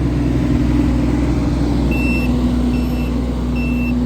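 Mini excavator's Isuzu diesel engine running steadily, with the machine's travel alarm starting to beep about two seconds in: short high beeps a little over one a second.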